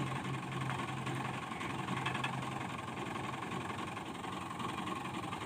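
Farm tractor's diesel engine running steadily at a low, even speed, hooked by a flat belt to a threshing machine.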